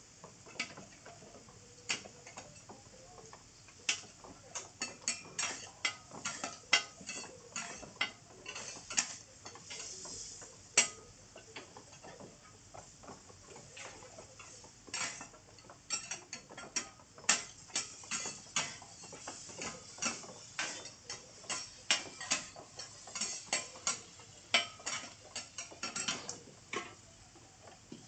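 Metal spatulas tapping, clicking and scraping on a flat steel griddle as pieces of pork offal are cut and turned. The taps are irregular and sharp, several a second at the busiest moments.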